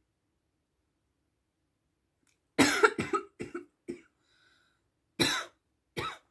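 A person coughing several times in short bursts, the first and loudest about two and a half seconds in, with two more single coughs near the end.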